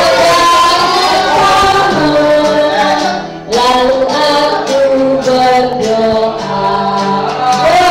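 Music with several voices singing together in held notes, breaking off briefly about three and a half seconds in before going on.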